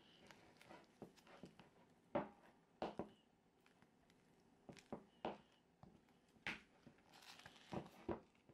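Silicone spatula stirring and pressing thick cream cheese frosting against the side of a bowl: faint, irregular squelches, scrapes and soft taps, about one every half second to second.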